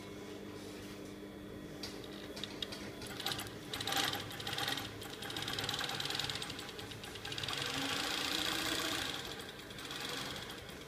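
Taking TK-592 double-needle post-bed sewing machine: a steady motor hum, then, from about three seconds in, runs of fast, even stitching with short slowdowns between them.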